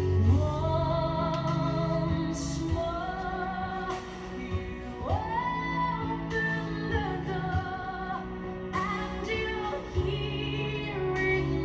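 Music with a singing voice holding long notes with vibrato, sliding up to a higher note about five seconds in, over steady low accompaniment.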